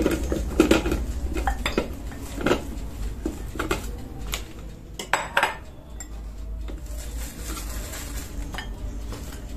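Kitchen bowls and utensils clinking and knocking on the counter while garlic is handled. There is a run of clinks through the first half, then only a few fainter knocks.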